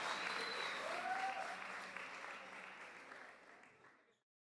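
Small audience applauding, fading out toward the end.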